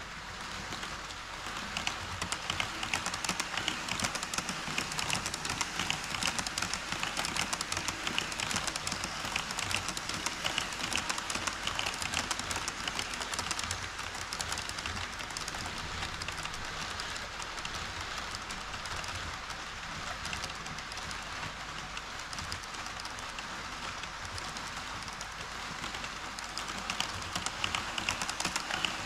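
HO-scale model train rolling along KATO Unitrack: a steady, rapid clatter of small metal wheels on the rails, a little louder from about a second in.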